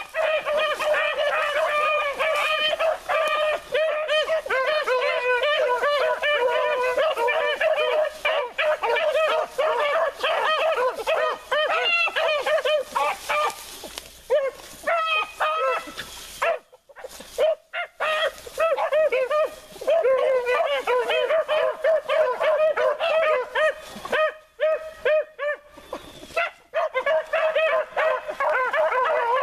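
A pack of four beagles baying together in full cry, many overlapping calls at once as they trail game through brush. The chorus thins out briefly about halfway through and again a few seconds before the end, then picks back up.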